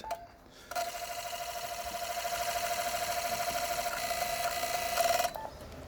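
Transceiver and automatic antenna tuner during a tune attempt: a steady mid-pitched tone with rapid, even pulsing over a hiss. It starts just under a second in, lasts about four and a half seconds and cuts off suddenly. The antenna's SWR stays high, and the tuner does not manage a good match.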